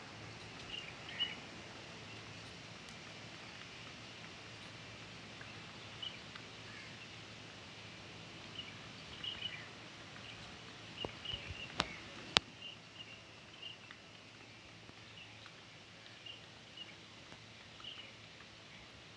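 Quiet open-air ambience with short, faint high chirps from birds scattered throughout. A few sharp taps a little under halfway through are the loudest sound, while peafowl peck grain off a stone pavement.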